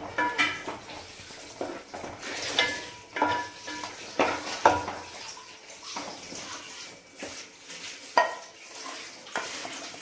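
Spatula scraping and clinking against a pot, in irregular strokes with short metallic rings, while stirring thick masala paste.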